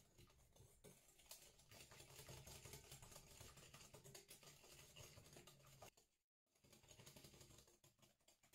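Faint, fast clicking and rattling of a wire whisk's metal tines against a glass bowl as egg and sugar are beaten. It stops briefly a little after six seconds, then starts again.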